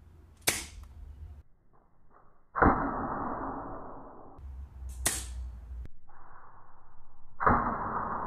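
Pellet gun shots: two sharp cracks about four and a half seconds apart, each followed a couple of seconds later by a longer rushing noise.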